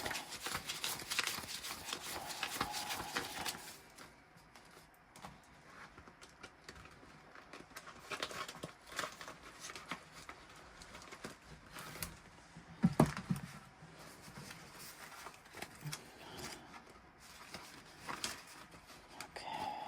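Paper banknotes and cash envelopes being handled: rustling and shuffling, busiest for the first few seconds, then quieter scattered crinkles and clicks, with a louder knock about 13 seconds in.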